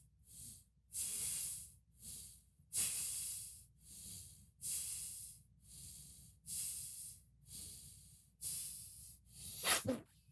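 A person breathing hard through the nose, with about ten airy breaths in and out, roughly one a second, while supposedly holding their breath. A louder, sharper breath comes near the end.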